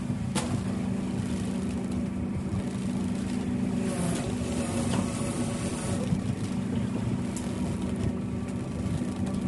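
Fishing boat's machinery running with a steady low hum while the gill net is hauled aboard, with a sharp click about half a second in.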